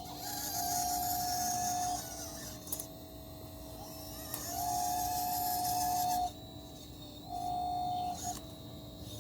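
Small electric motors of a 1/12-scale RC excavator whining in three bursts as it moves, each at a steady pitch with a high hiss and starting and stopping abruptly; the second burst is the longest.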